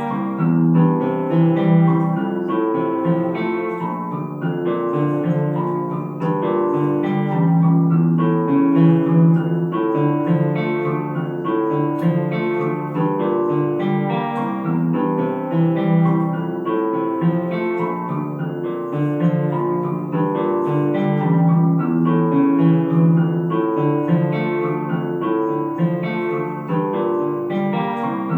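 Background music: plucked guitar with some keyboard, playing a steady, even melody.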